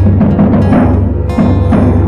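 Live band music: a didgeridoo's low drone pulsing in rhythm, drums struck about twice a second, and acoustic guitar.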